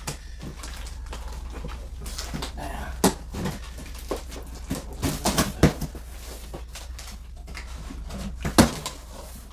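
Large cardboard monitor box being handled and opened on a table: scattered taps, knocks and scrapes of cardboard, the loudest knocks about three, five and a half, and eight and a half seconds in.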